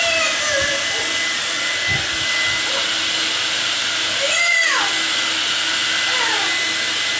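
A dryer blows with a steady hiss and whine while a cat meows: a short meow at the start, one long meow falling in pitch about four and a half seconds in, and a fainter one near six seconds.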